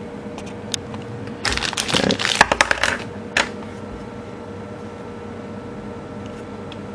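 Plastic clicks and rattles from opening a USB TV tuner stick by hand: a few single clicks, then a quick cluster of clatter for about a second and a half, and one last click a little after.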